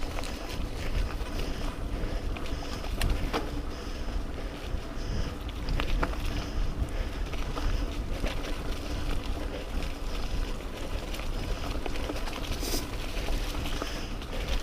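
Mountain bike rolling over a dirt trail, with a steady low rumble and scattered clicks and rattles, and wind buffeting the microphone.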